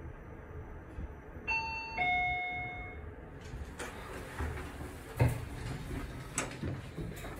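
Lift arrival chime: two descending tones, a ding-dong. The doors then slide open, followed by a few footsteps and knocks.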